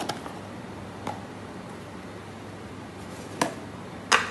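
About four short, sharp knocks over a steady faint hiss of room noise, the loudest near the end.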